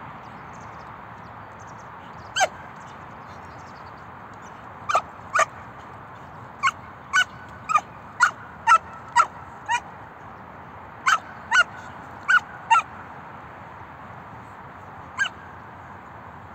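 Belgian Malinois puppy barking at a decoy during bite-work training: about fifteen short, sharp, high-pitched single barks. They start with one bark, then come in a quick run and a second cluster, and end with a last lone bark near the end.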